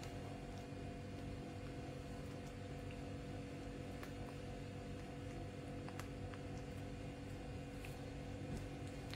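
Quiet room tone: a steady low electrical hum with a few faint clicks.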